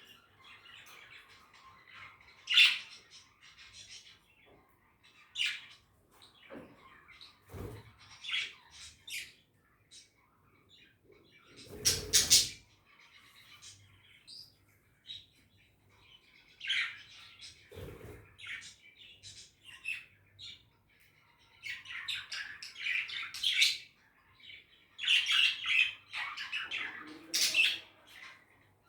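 Pet budgerigars chirping and chattering in short bursts, busier near the end, with a few louder knocks now and then.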